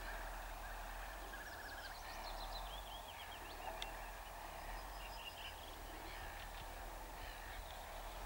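Birds calling, with a quick run of falling chirps about two to three seconds in, over a steady background hum.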